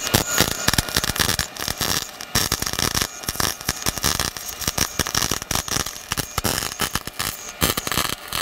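Wire-feed (MIG) welder arc crackling and sputtering steadily as a bead is run on steel tubing, cutting off at the end.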